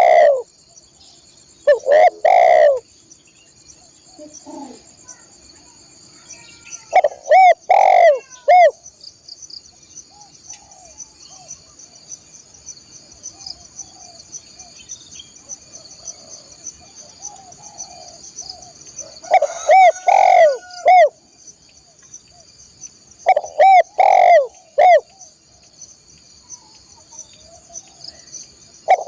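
Spotted dove cooing in short phrases of three or four notes, about five phrases, with long gaps between them. A steady high-pitched drone runs underneath.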